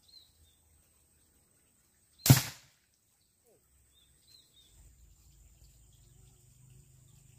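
A single sharp shot, a short crack with a brief tail, fired at a snakehead fish in the shallow water of a pond.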